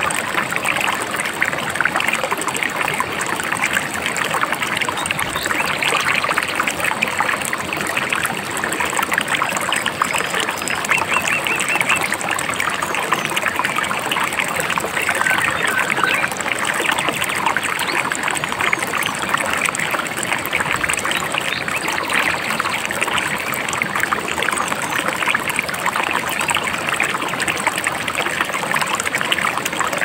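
Babbling river: a steady, unbroken rush of flowing water.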